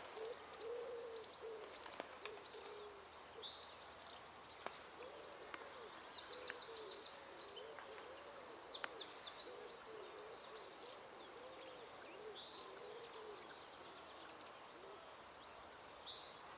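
Birds calling at dawn: a low call repeated over and over, short and arched, with high twittering songs above it and a fast trill about six seconds in.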